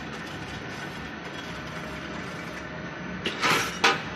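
Welding rod packing machinery running with a steady mechanical hum and rattle, then two short, loud noisy bursts near the end.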